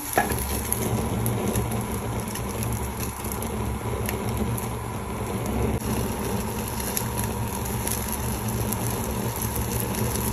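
Open fire crackling with a few scattered pops over a steady low hum, as skewered pieces of fish are charred over the flame. There is a sharp click right at the start.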